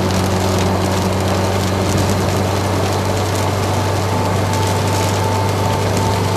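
Inside a Peugeot 504 driving at highway speed on a rain-soaked road: a steady low engine drone under the hiss of tyres on wet tarmac and rain on the car. A thin whine joins about halfway through.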